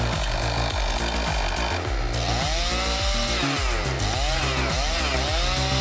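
Chainsaw running and cutting, its pitch rising and falling again and again through the second half, over background music with a steady beat.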